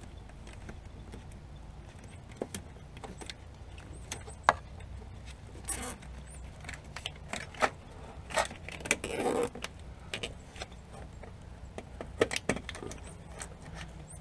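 Gloved hands handling a salt spreader's wiring harness and plastic zip ties along a truck frame: scattered clicks, light rattles and rustling over a steady low hum, with one sharp knock about four and a half seconds in.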